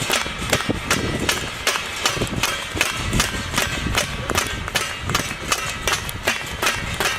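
Rhythmic percussion: sharp, evenly spaced strikes at about four to five a second, kept up without a break.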